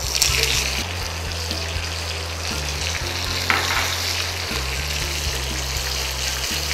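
A tempering of mustard seeds, cumin, dried red chillies and freshly added curry leaves sizzling and spluttering in hot coconut oil in a small pan as it is stirred. The sizzle is strongest right at the start, as the curry leaves hit the oil, then carries on steadily.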